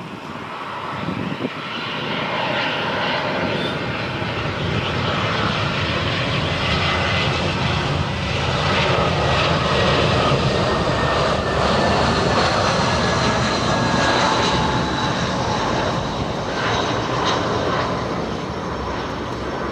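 Airbus A320-232's IAE V2500 turbofan engines on final approach, growing louder to a peak about halfway through and fading toward the end as the airliner passes. A high engine whine slides slowly down in pitch under the roar.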